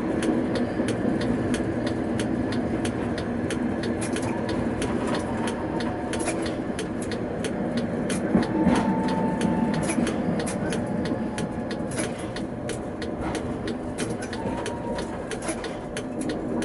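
Tatra K2P articulated tram running along the track, heard from the driver's cab: a steady hum from the drive with frequent sharp clicks and knocks from the wheels on the rails.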